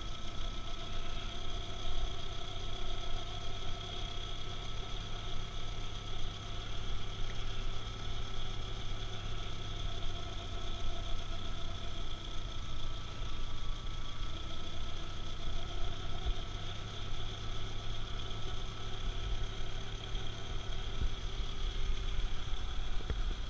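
Audi 80's carbureted four-cylinder engine idling steadily on LPG through a newly fitted vacuum vaporizer that has been set by ear, running smoothly.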